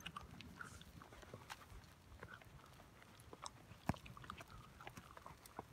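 Faint hoof falls of a horse walking in hoof boots on a soft dirt trail, with footsteps: scattered soft knocks and clicks at uneven intervals, and one sharper click about four seconds in.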